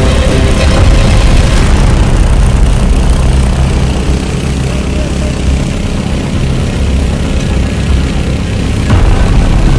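Large engine running steadily, loud and low, picking up again about nine seconds in.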